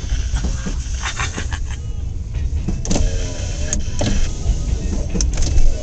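Intermodal freight train cars rolling past with a steady low rumble, wheels clicking and knocking over rail joints, and a short squeal about three seconds in. Heard muffled from inside a car.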